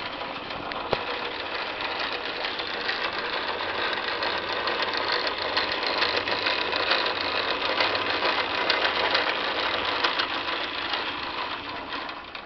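Logan 10 x 24 Model 200 metal lathe running on its 2 HP three-phase motor with a fast, dense rattling clatter, then winding down near the end.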